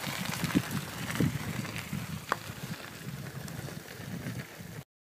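Bicycle tyres rolling down a gravel road, a steady crackle of small stones with scattered ticks, and wind rumbling on the microphone. The sound cuts off abruptly near the end.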